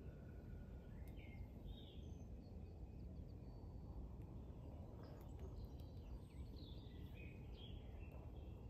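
Faint outdoor ambience: birds chirping in short calls here and there over a low, steady rumble.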